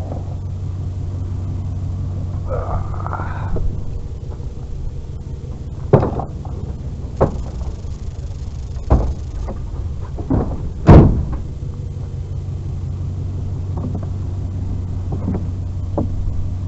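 Vehicle engine idling steadily, with a series of loud bangs and thumps of metal handling, about five in all, from about six to eleven seconds in; the loudest comes near the end of the run.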